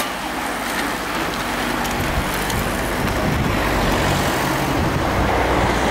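A bunch of road-racing cyclists passing close by: a loud, steady rushing noise, with a low rumble joining about two seconds in.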